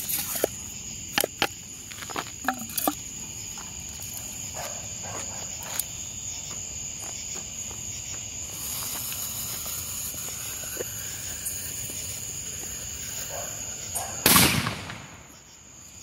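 Crickets chirping steadily, with a few sharp clicks near the start and a faint fuse hiss. About fourteen seconds in, a 1.5-inch consumer mortar shell is fired from its tube with one loud thump that fades over about a second.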